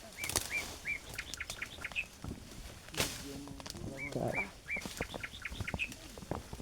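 A bird calling: a quick series of four or five short, arched chirps, given twice, the second run about four seconds in. Scattered clicks and rustles run under the calls.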